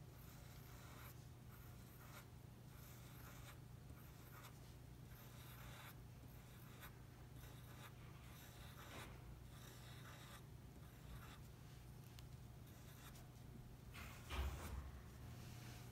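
Wooden pencil scratching on paper in many short, faint strokes as small spots are drawn, with a soft knock near the end.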